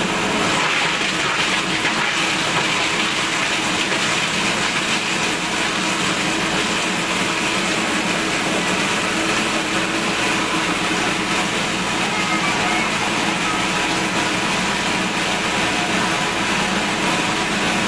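Plastic waste crusher machine running with a steady, loud mechanical din as plastic is fed into its hopper and chopped.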